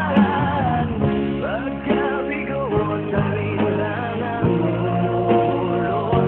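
Background music: a song with a voice singing over steady instrumental accompaniment.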